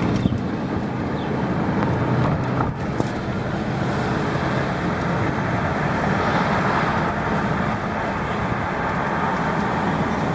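Steady road and tyre noise of a car driving, heard from inside its cabin, with no brake squeal clearly standing out.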